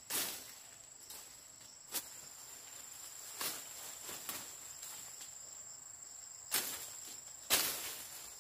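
Steady high-pitched trill of insects, with about five short, sharp rustling or knocking noises at uneven intervals.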